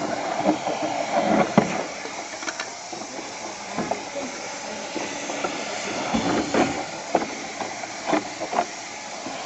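Heat gun blowing hot air in a steady hiss, softening the vinyl deck membrane so it bends more easily at a corner. A few light knocks and clicks sound over it.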